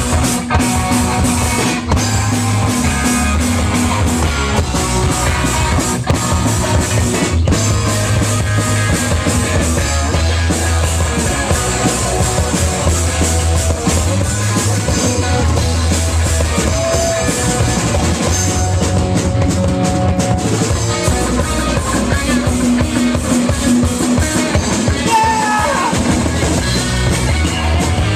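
Live punk rock band playing a song, loud and steady: a drum kit, bass and two guitars.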